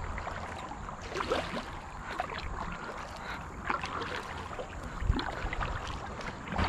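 Kayak paddling on a river: the paddle blades dip and splash in the water at an irregular pace, with a few light knocks, over a steady low rumble.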